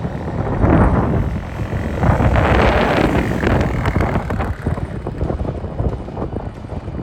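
Wind buffeting the microphone over a small pit bike's engine, swelling about a second in and again for a second or so in the middle.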